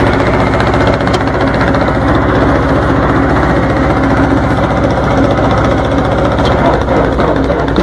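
Diesel engine of an old yellow crawler tractor running steadily, heard close to the hood and exhaust stack.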